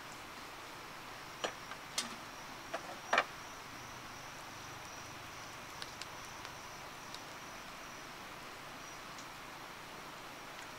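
A steady high insect trill over a light background hiss. A few sharp clicks or light knocks come in the first few seconds, the loudest about three seconds in, then a few fainter ticks.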